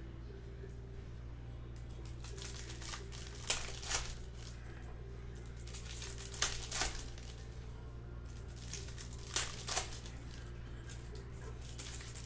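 Foil wrapper of a Topps Chrome baseball card pack crinkling and tearing as it is peeled open by hand. The crackles come in three pairs, a few seconds apart, over a steady low hum.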